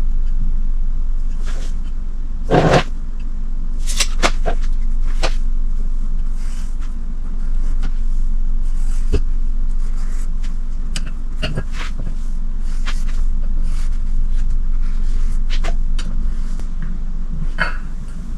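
A steady low hum under scattered light clicks, knocks and scrapes as round metal exhaust flanges are handled and traced around with a marker on a plastic tote lid. There is a louder knock about two and a half seconds in.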